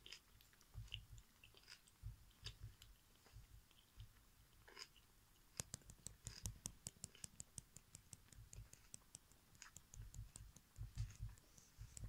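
Quiet chewing of a mouthful of banana eaten with its peel on: soft clicks and smacks of the mouth, with a quick run of clicks in the middle.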